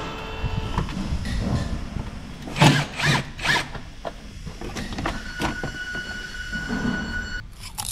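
Cordless drill-driver whirring in short runs as it backs out the T20 screws of a car's plastic undertray. Three loud knocks come about two and a half to three and a half seconds in, as the plastic panel is worked loose.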